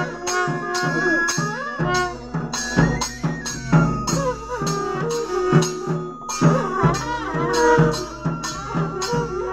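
Traditional folk band of long straight brass horns and dhol barrel drums playing together. A quick, steady drum beat of about two strokes a second runs under held, blaring horn notes and a wavering melody.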